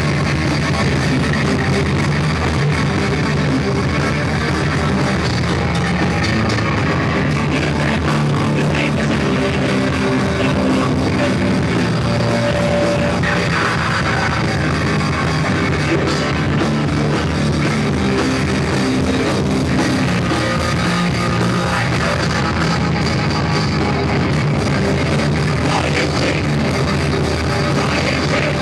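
Rock band playing live, with guitar and drum kit, loud and steady, in a poor-quality audience recording.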